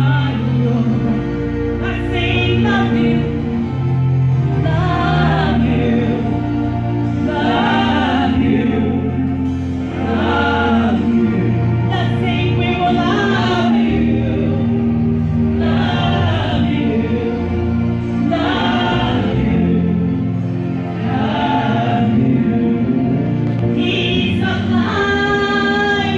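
Live gospel music: women's voices singing together through microphones and a PA, over a steady accompaniment of sustained low notes. The sung phrases come back every two to three seconds.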